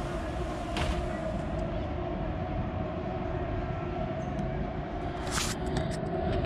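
Steady low rumble of city traffic with a steady hum over it, and two short sharp clicks, one about a second in and one about five seconds in.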